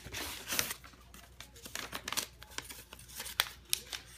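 Paper rustling and crinkling as hands pull a folded receipt out of a cardboard shoe box and handle it, in irregular bursts with a few sharp crackles.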